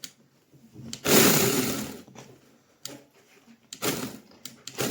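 Angseen 6-inch battery mini chainsaw's brushless motor run in short bursts. A loud burst about a second in dies away over about a second, followed by shorter, quieter bursts.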